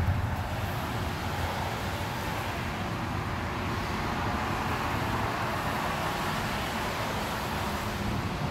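Steady traffic noise from cars on a rain-wet road, their tyres hissing on the wet surface.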